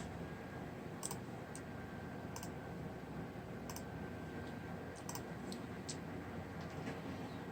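Scattered light clicks from operating a computer's mouse and keys, about seven spread irregularly over several seconds, over a steady low hum.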